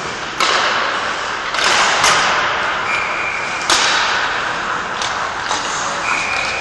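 Ice hockey practice on an indoor rink: skate blades scraping and hissing on the ice, with about five sharp knocks of pucks and sticks striking.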